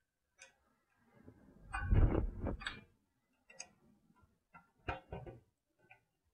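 Light clicks and rustling from handling insulated wires as their crimp terminals are pushed onto the terminals of a mechanical hour meter, with a longer rustle about two seconds in and several separate clicks after it.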